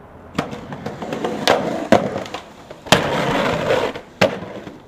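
Skateboard being ridden and tricked on concrete: about five sharp clacks of the board and wheels hitting the ground, with rolling noise between them and a longer stretch of rolling about three seconds in.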